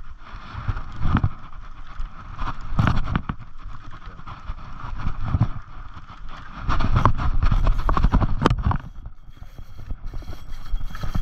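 Wind buffeting a body-worn microphone in uneven gusts, mixed with handling noise from cranking a large saltwater spinning reel during a popper retrieve.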